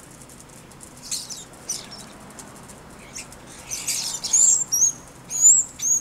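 European starlings fluttering their wings at a hanging suet feeder in several short bursts, the loudest about two thirds of the way in. Near the end come four short, high whistled notes that rise and bend.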